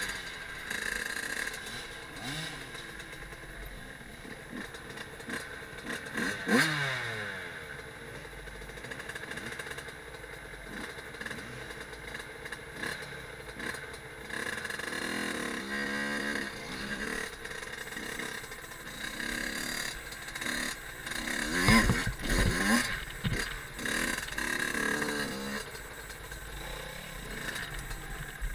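Fantic Caballero 50's small two-stroke engine revving up and down as the bike is ridden over rough ground, with rattling and knocks from the chassis on bumps. There is a loud knock about six seconds in and a cluster of heavy knocks about three quarters of the way through.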